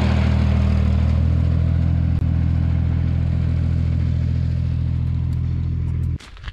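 Farm tractor engine running loudly at a steady pitch, cutting off suddenly near the end.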